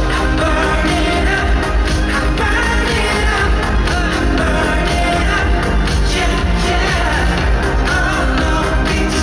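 Loud amplified K-pop music with singing, over a heavy, steady bass beat.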